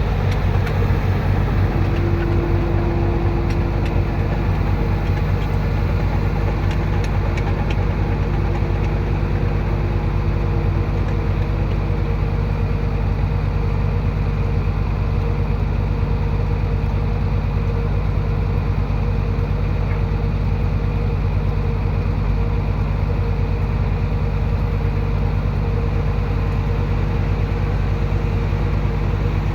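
Heavy diesel engine of earth-moving machinery running steadily at an even speed.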